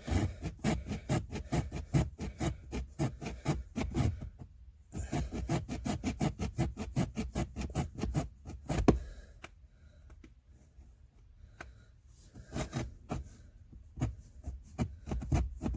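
Plastic HVAC housing being cut by hand with a saw blade to open a slot for a cabin air filter: quick rasping back-and-forth strokes in bursts, with a lull of a few seconds past the middle.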